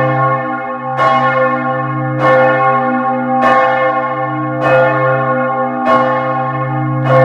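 A large church bell of Giotto's bell tower at Florence Cathedral tolling, a single bell struck seven times at an even pace of about one stroke every 1.2 seconds. Each stroke rings on, over a deep steady hum.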